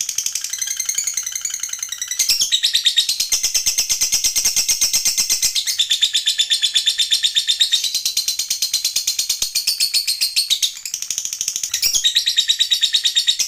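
Lovebird singing a long 'ngekek': a rapid, unbroken chattering trill of high, shrill notes, many a second. The trill shifts briefly in pitch about two seconds in and again near eleven seconds.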